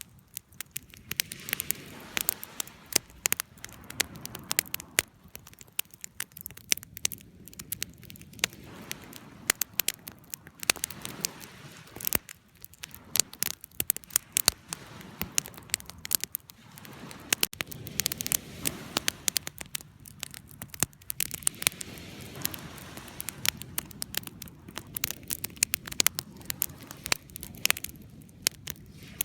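Wood fire crackling: frequent irregular sharp pops and snaps over a soft low hiss of burning.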